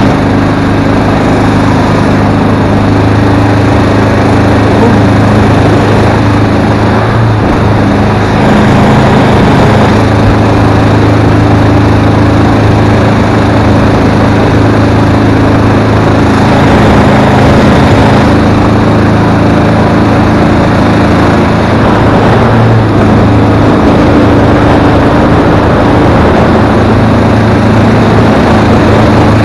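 Mud motor running steadily under way, pushing a 14-foot aluminum boat, its engine note holding an even pitch, with water rushing along the hull.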